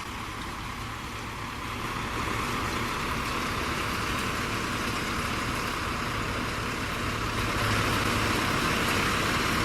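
Engine of a loaded self-loading concrete mixer running steadily as it drives through mud, growing louder about two seconds in and again a couple of seconds before the end.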